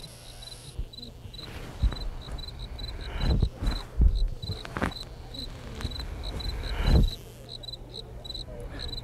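Experimental ambient composition: a high, cricket-like chirp pulsing about three to four times a second over irregular low thuds and rustles, the loudest thud about seven seconds in.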